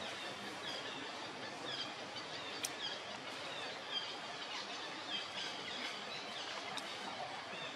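Outdoor ambience: a steady background hiss with birds giving short, repeated falling chirps about once or twice a second.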